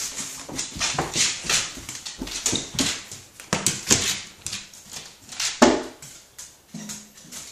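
A dog panting quickly, about three short hissing breaths a second. There is a louder thump about five and a half seconds in.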